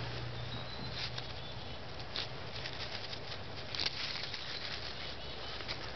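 Light clicking and rustling of wooden sticks as peeled stick tines are handled and slid between the two rail sticks of a rake, with dry leaves crackling under the hands. The clearest clicks come about one, two and nearly four seconds in.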